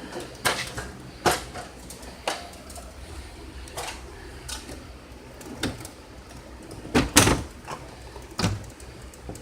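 Irregular knocks and clicks from hand work on an HVAC indoor unit as a part is worked loose for removal, with a louder clatter about seven seconds in.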